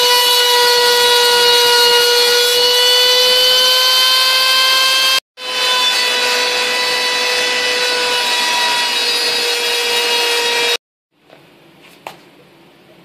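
Router spindle of a homebuilt CNC router running at speed and cutting into wood: a loud, steady high whine with its overtones, over the rush of a dust collector. The sound breaks off for an instant about five seconds in. It stops shortly before the end, leaving a low hum and a single click.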